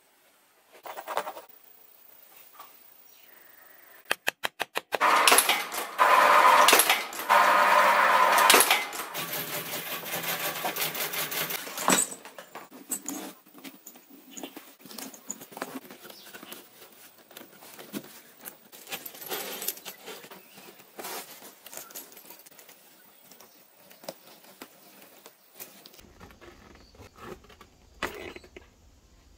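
Hand leatherworking on a canvas-and-leather backpack: a quick run of sharp clicks about four seconds in, then a loud steady rattle for about seven seconds. After that come scattered small clicks, rustles and the clinking of metal buckles and strap hardware.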